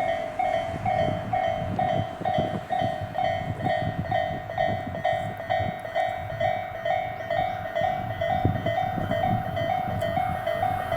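Japanese railway level crossing's electronic warning bell ringing steadily, about two dings a second, while a train runs past with its wheels clacking over the rail joints.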